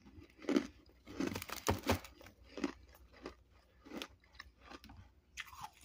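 Mouthful of freezer frost being crunched and chewed close to the microphone. The loudest crunches come in the first two seconds, then softer, more spaced chews follow.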